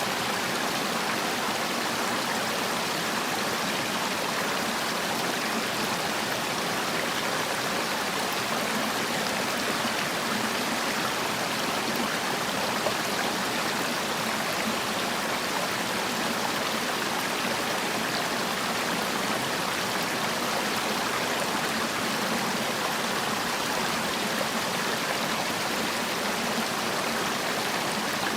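Mountain stream water rushing and splashing over rocks, a steady, even rush.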